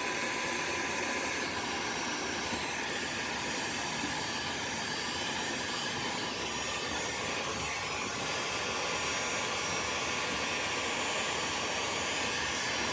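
Handheld electric hot-air blower running steadily, blowing hot air onto ice packed on a refrigerator's freezer evaporator coils to melt it loose.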